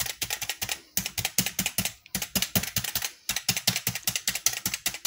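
Handheld needle meat tenderizer pressed repeatedly into pork skin, pricking holes: quick runs of clicks, about five or six a second, with short pauses between runs.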